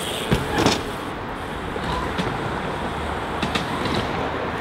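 BMX bike landing a box jump on skatepark ramps, with two sharp knocks in the first second, then a steady rush of tyres rolling and air moving past, with a few light clicks.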